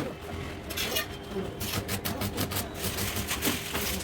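Electric arc welding crackling in quick, irregular clicks, growing denser a little over halfway through.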